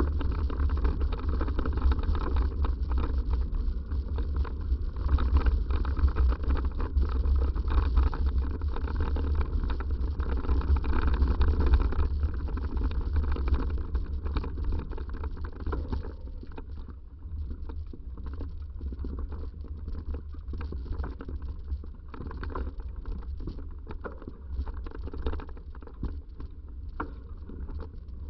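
Wind buffeting a microphone carried on a moving bicycle, with the bike rattling and clicking over a rough dirt trail. It is quieter from a little past halfway.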